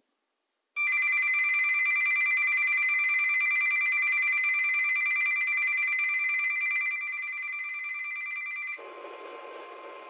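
A weather alert radio's built-in alarm goes off, a loud, rapidly pulsing shrill tone lasting about eight seconds, set off by a flood warning. It cuts off, and the radio's speaker then carries the steady NOAA Weather Radio warning alarm tone under heavy static from a weak, distant station.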